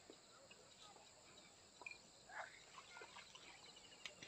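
Near silence: faint outdoor ambience with a steady high hiss and a few scattered faint chirps and clicks.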